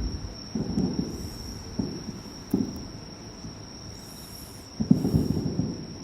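Distant fireworks shells bursting, a string of low, rumbling booms with the loudest cluster about five seconds in, over insects trilling steadily.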